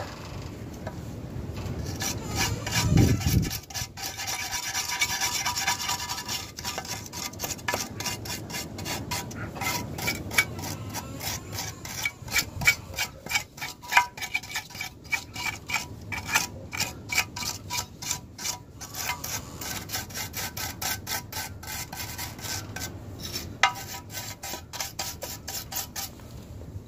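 Rapid back-and-forth scrubbing on the side cover of a Lifan 150cc ATV engine, scouring off caked dirt, with a brief low rumble about three seconds in.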